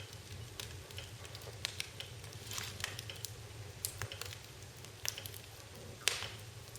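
Wood fire crackling in a fireplace: irregular sharp pops and snaps over a soft hiss, with one louder pop near the end.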